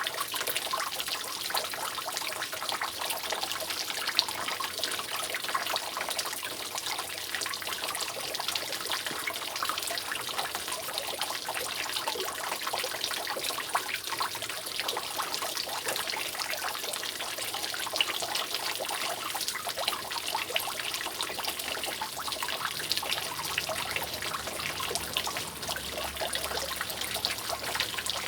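Water from roof leaks dripping and trickling steadily in a dense, continuous patter of small drops, with an occasional louder drop.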